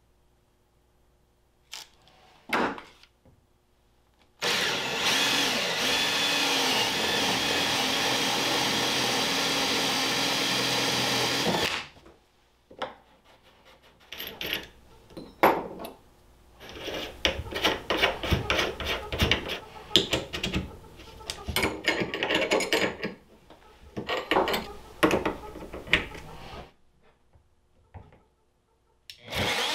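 A power drill with a step drill bit runs steadily for about seven seconds, boring a hole in a polyethylene holding tank. Then comes a stretch of irregular scraping and knocking of plastic as the hole is cleaned up and a plastic fitting is pushed into it. Just before the end a router starts up to spin-weld the fitting.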